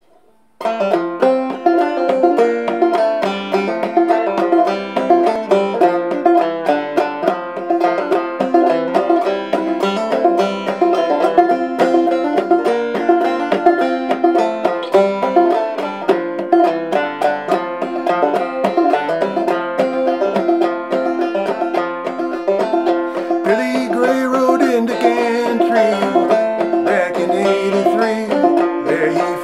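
Clawhammer banjo, a 1903 Fairbanks Whyte Laydie #2 with a pie-plate resonator, tuned fDGCD, playing an instrumental tune in the key of F that starts about half a second in.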